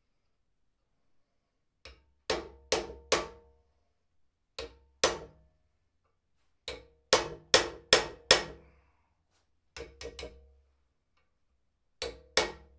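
Hammer blows on a hand-held forging tool set against red-hot iron on an anvil. The blows come in short runs of two to five, each with a brief metallic ring.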